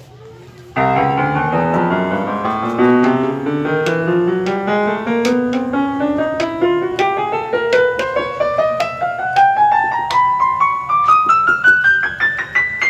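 Casio electronic keyboard in a piano voice, played one key after another in a steady climb from the low notes to the top of the keyboard, checking that every repaired key sounds.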